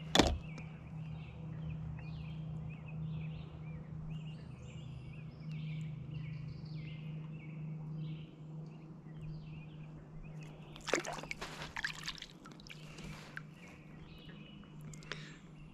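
Small birds chirping and singing over a steady low hum, with a couple of seconds of close rustling and scraping about eleven seconds in.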